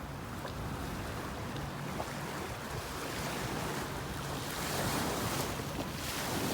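Sea waves washing in, with wind buffeting the microphone; the rush swells about five seconds in, over a steady low hum.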